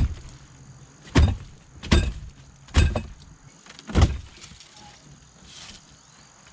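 Five heavy knocks about a second apart, blows struck on the wooden structure of a boat, then only faint background.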